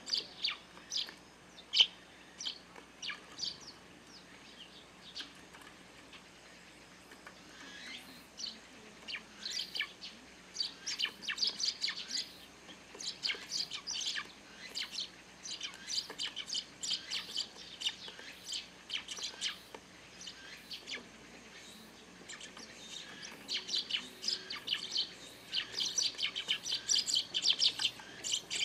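A flock of Eurasian tree sparrows chirping busily, many short calls overlapping; the chirping thins for a few seconds early on, then picks up again thick and fast.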